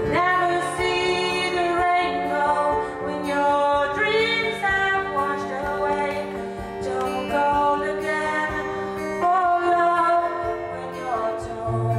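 A woman singing live to her own strummed acoustic guitar, holding long notes with vibrato and sliding up into some of them.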